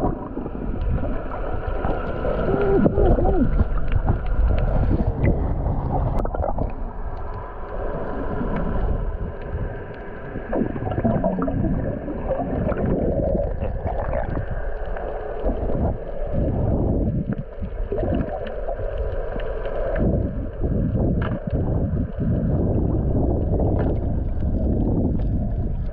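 Muffled underwater sound picked up by a submerged action camera: a steady low rush of water with bubbles gurgling from snorkelers diving, and a few short knocks.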